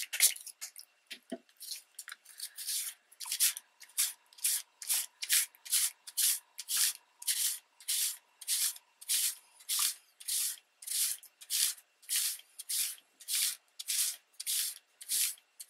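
Soft cloth rubbing back and forth over damp magazine paper laid on a plastic grid, in even scratchy strokes about two a second, lifting the printed ink so the grid texture shows through. It opens with a couple of quick spray-bottle squirts of water and rubbing alcohol.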